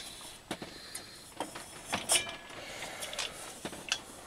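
Handling noise: irregular light clicks and small knocks, a few each second, as things are moved around a metal radio chassis on a workbench.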